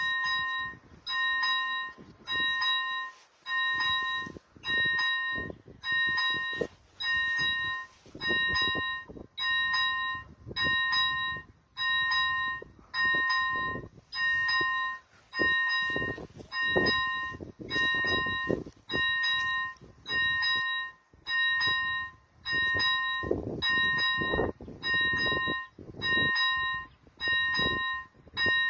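Level-crossing warning bell (AŽD, bell type 71) ringing while the crossing is closed for an approaching train. It gives a steady run of evenly spaced electronic dings, a little under one a second, each a short ringing tone.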